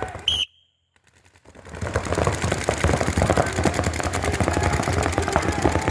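Paintball markers firing in rapid, overlapping strings of shots, many a second. Before them there is a brief high beep and about a second of silence.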